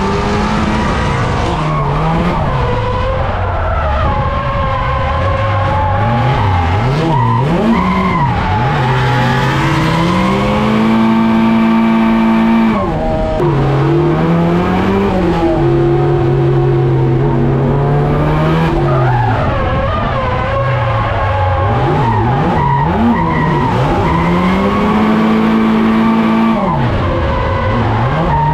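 SR20DET turbocharged four-cylinder in an AE86 drift car, heard from inside the cabin, revving up and down again and again as it holds a drift, sitting high for a couple of seconds at a time before dropping. Tyres screech under it throughout.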